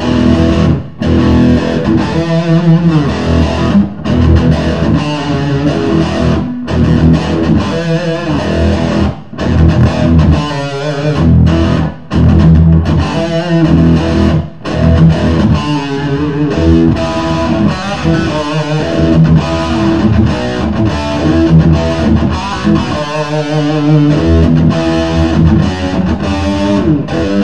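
1980 Gibson Les Paul electric guitar being played continuously with a few short breaks. Its strings are worn out ('shot').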